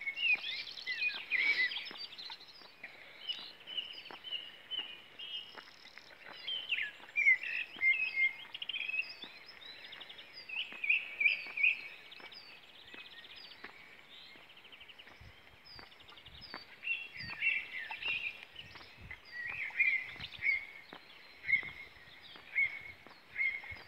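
Several songbirds singing at once, a mix of overlapping trills, warbles and short repeated notes. Soft low thumps come in from a little past halfway.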